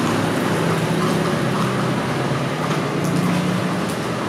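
Steady busy-street ambience: a low hum of traffic and engines under an even wash of street noise.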